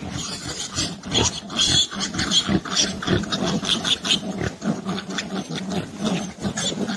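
Animal sounds, a dense run of short calls several times a second.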